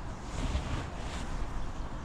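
Wind buffeting the microphone: a steady low rumble with gusty hiss about half a second in.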